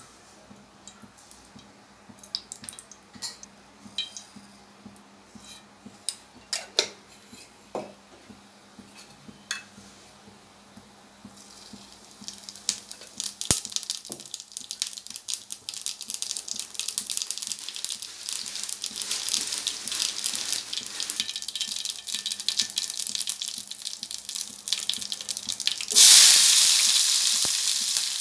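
Cooking oil heating in a pan with scattered small ticks and clicks, then building partway through into a steady crackling sizzle as cumin seeds fry in the hot oil. Near the end, a sudden loud sizzle as chopped onions are dropped into the hot oil.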